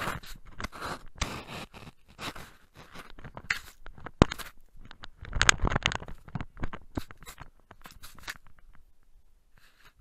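A dog nosing at a camera in the snow: irregular scrapes, scratches and crunches of its muzzle and snow rubbing against the camera body, with a few sharp clicks, going quieter about eight seconds in.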